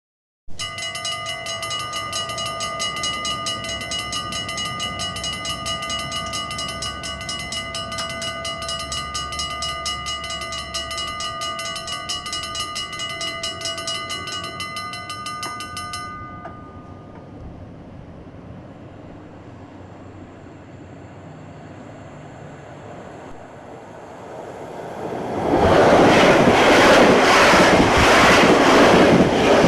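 Railway sounds: a steady, high, rapidly pulsing ringing tone of several pitches that stops about 16 seconds in. From about 25 seconds a train passes loudly, with a rhythmic clatter of its wheels on the rail joints.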